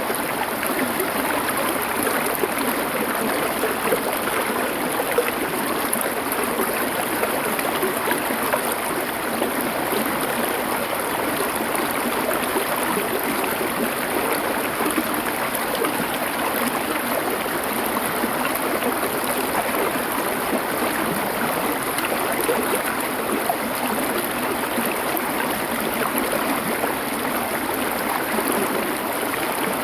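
Stream water flowing steadily over stones, an even rushing and babbling with no breaks.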